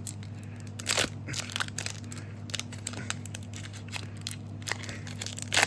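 Foil trading-card booster pack being torn open and crinkled by hand: irregular crackles and small clicks, with a sharper tear about a second in and another near the end.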